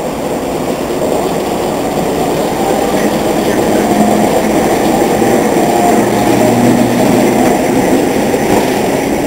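BR Class 11 diesel shunter's English Electric six-cylinder diesel engine running as it hauls a rail-mounted crane past at close range, with the rolling rumble of the locomotive's and crane's wheels on the track. The steady noise grows a little louder a few seconds in.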